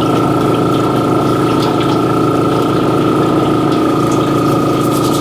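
Small air compressor running with a steady hum, bubbling air through the egg-washing water in a sink, with a few light clicks.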